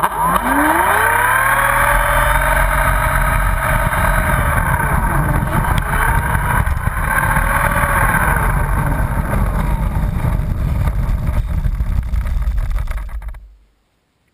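RC model T-28 Trojan airplane's motor and propeller, heard up close from a camera mounted on the plane: it spins up with a sharply rising whine, runs at varying throttle with two brief dips in pitch, and cuts off suddenly near the end. A steady low rumble of prop wash sits under the whine.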